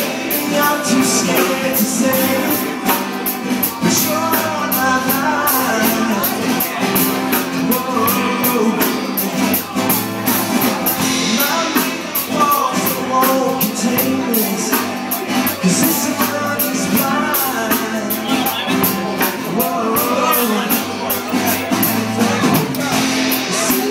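Live band playing a song: a man singing lead into a microphone over a strummed acoustic guitar and a drum kit with cymbals keeping a steady beat.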